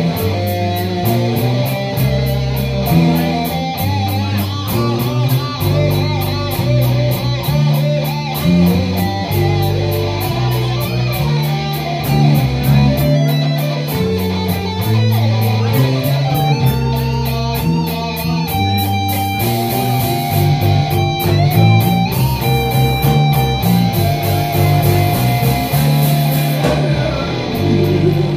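Live blues band playing an instrumental stretch with no vocals: electric guitars over electric bass and drums, with cymbals keeping time.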